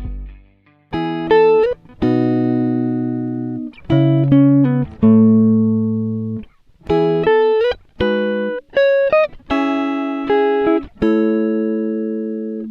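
Background music: a guitar playing slow plucked notes and ringing chords, phrase by phrase with short breaks between them.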